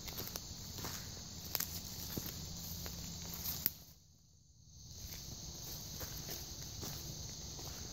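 Footsteps on forest-floor leaf litter at a walking pace, about one step every half second or so, over a steady high-pitched insect buzz. The sound drops almost to nothing for about a second midway.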